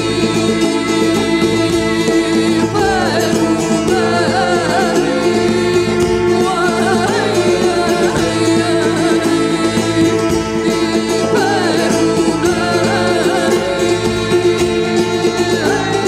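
Live folk music: a woman sings a wavering, ornamented melody over a steady held drone from small long-necked plucked lutes (tamburas) and keyboard. The voice comes in about two and a half seconds in.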